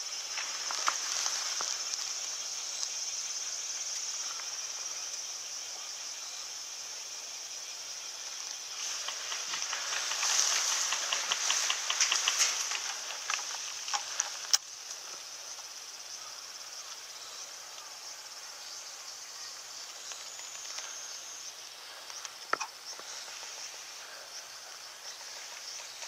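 Insects buzzing steadily at a high pitch in summer grassland, swelling from about nine to thirteen seconds in, with scattered rustles and sharp clicks from movement in the grass.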